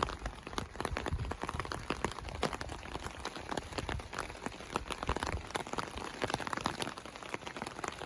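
Steady rain, with many separate drops ticking sharply on a close surface over a continuous hiss.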